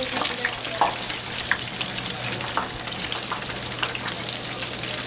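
Hot oil in a commercial deep fryer bubbling and sizzling as battered fish chunks are dropped in by hand, with many short crackles and pops over a steady hiss. A faint steady low hum runs underneath.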